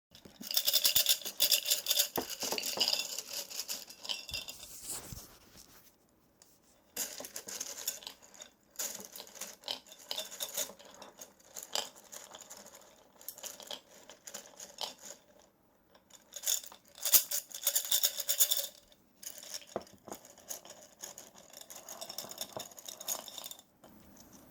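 Small hard objects rattled and shaken in bursts of a second to several seconds, with short pauses between.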